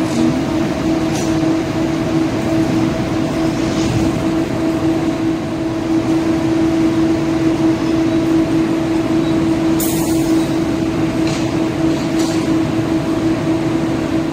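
Siemens-Adtranz Modula (Type A1) metro train standing at a platform, its electrical equipment giving a steady hum on one held tone. A few short sharp clicks come about ten to twelve seconds in as the doors close.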